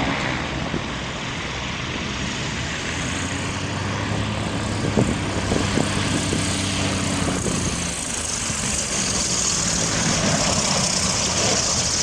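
Aircraft engine noise: a steady drone with a broad hiss.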